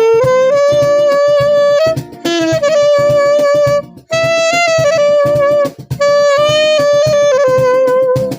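Saxophone playing a slow song melody in long held notes, phrased in spans of about two seconds with short breaks between them, over a steady rhythmic accompaniment.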